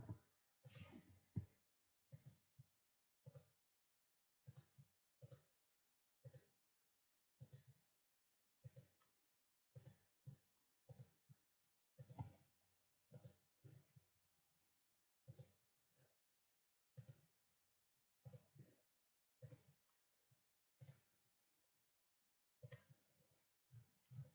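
Faint computer mouse clicks, about one a second, some coming close together in pairs.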